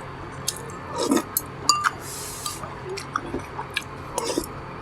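A person chewing food, with scattered small clicks and crackles of eating and a brief clink of tableware a little under two seconds in.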